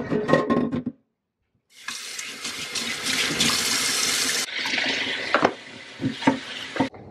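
Kitchen tap running into a stainless steel sink, water splashing on trays being rinsed under it. It opens with a brief clatter of the trays being handled, then the water comes on about two seconds in. It runs loudest at first, then softer from about four and a half seconds in, with a couple of knocks as the trays bump the sink.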